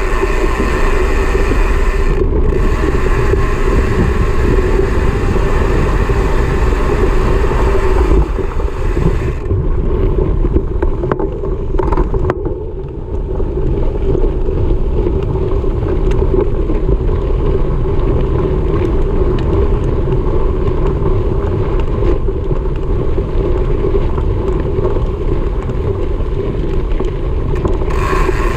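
Steady rumble and wind buffeting on a camera mounted on a moving mountain bike rolling over a dirt trail, with a constant hum underneath. The hiss thins out for a few seconds in the middle.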